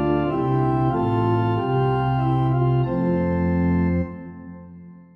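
Organ playing a hymn introduction in slow, held chords. The last chord fades away from about four seconds in.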